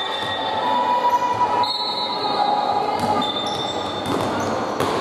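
Basketball game play on a wooden indoor court: a ball bouncing in a few sharp knocks while shoes squeak on the floor in short high-pitched tones.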